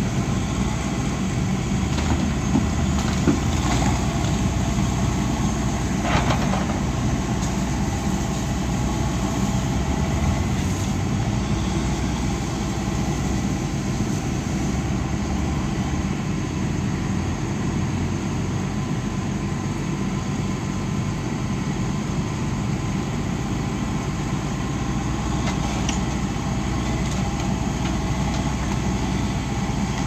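Diesel engine of a John Deere tracked excavator running steadily as it works, with a few short crashes of breaking building debris, the clearest about six seconds in.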